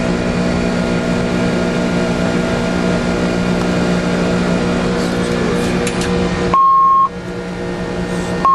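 Steady cockpit noise of an Airbus A300 airliner: the constant hum of engines and airflow, with several steady low tones. Near the end a short, loud, high beep sounds while the background drops out, and a second identical beep starts about two seconds later.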